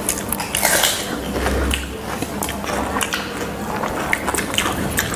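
Close-miked eating: chewing and biting with many short, scattered wet mouth clicks.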